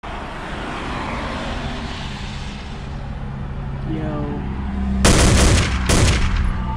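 A steady low hum and hiss, then two loud bangs about a second apart near the end.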